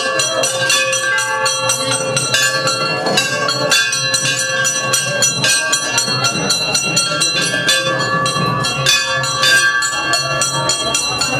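Loud devotional DJ music with no singing: bell-like tones ringing over a steady beat.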